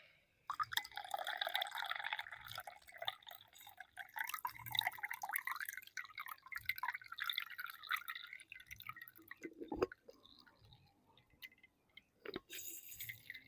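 Fresh watermelon juice running and dripping from a manual juice press, a dense crackling trickle that thins out after about nine seconds. A dull knock comes near ten seconds and a brief splashy hiss near the end.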